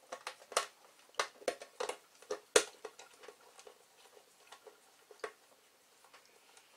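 Irregular small metallic clicks and taps of a screwdriver driving fine-thread screws into a sheet-metal power supply case. The clicks come thickly at first, the loudest a little over two and a half seconds in, then thin out.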